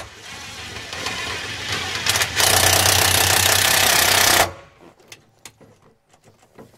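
Cordless drill boring through a metal panel, speeding up and getting louder about two and a half seconds in, then cutting off suddenly at about four and a half seconds, as the battery runs flat.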